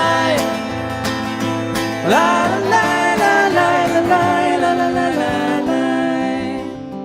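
Acoustic song: a male voice singing held, gliding notes over strummed acoustic guitar, the voice sliding up about two seconds in, the music growing quieter near the end.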